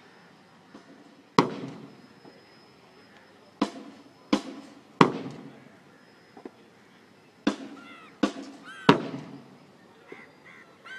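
Heavy bass drum beats from a parade band, each ringing out briefly, struck in sets of three about 0.7 seconds apart: one beat, then two sets of three.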